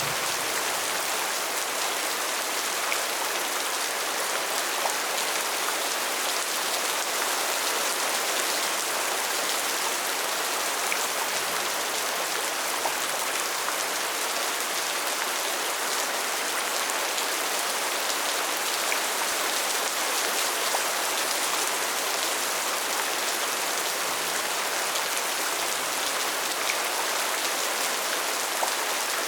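Steady rain falling: a dense, even hiss of rain on surfaces with scattered single drops standing out.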